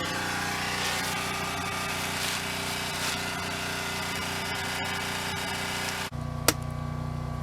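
A small engine running steadily. Its sound changes abruptly about six seconds in to a lower, heavier hum, with a sharp click shortly after.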